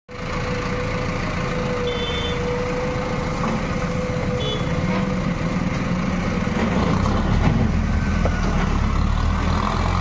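Diesel engine of a tractor-mounted backhoe loader running steadily as the tractor drives along. Its low rumble grows a little stronger about seven seconds in.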